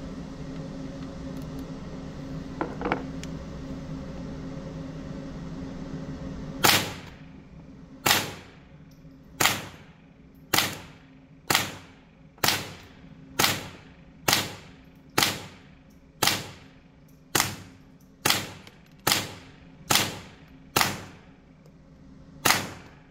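HK416 .22 LR rifle fired semi-automatically, sixteen single shots at about one a second starting roughly seven seconds in, each shot echoing in an indoor range. Before the shooting there is a steady hum and a faint double click.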